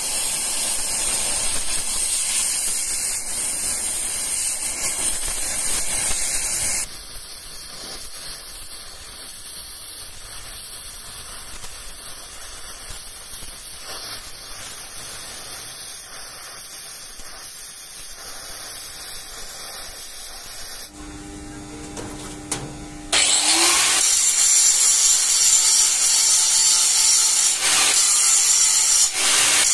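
Oxy-fuel gas cutting torch hissing as it blows molten weld out of the eye of a steel sledgehammer head, loud at first and then quieter. After a short whine, an angle grinder cuts into steel angle iron, loud and rough for the last six seconds.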